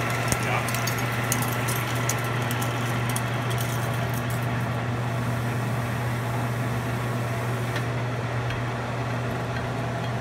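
Holbrook lathe running with a steady low hum while a large twist drill bores into a spinning metal workpiece under coolant, with sharp crackling ticks of chips in the first few seconds. About eight seconds in the cutting hiss drops away as the drill backs out, leaving the lathe's hum.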